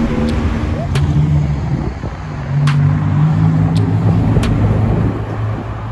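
Porsche 911 GT2 RS's twin-turbo flat-six pulling away in street traffic. After a cut about two seconds in, a car engine runs steadily at low revs.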